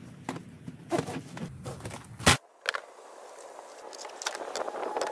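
Plastic shrink wrap crinkling, with scissor snips and light clicks and scrapes of hollow vinyl fence rails being unwrapped and handled. A low rumble in the first half stops abruptly with a sharp click a little past two seconds in.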